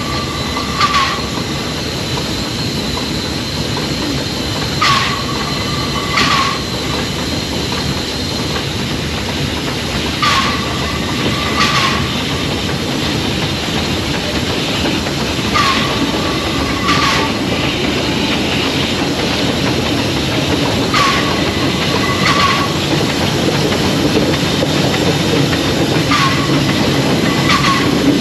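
Small vintage steam locomotive running slowly along the track with a steady rumble of wheels on rail that grows louder near the end. About every five and a half seconds a pair of short ringing tones sounds, the two about a second and a half apart.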